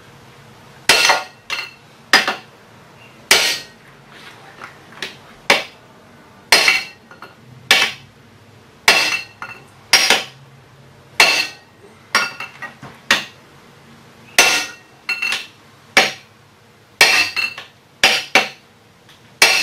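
Hammer striking a steel punch held against a jackshaft bearing's inner race under a tensioned puller: a series of sharp metallic blows, roughly one a second and sometimes two or three in quick succession, each with a short ring. The blows are meant to shock the heat-soaked, stuck bearing loose.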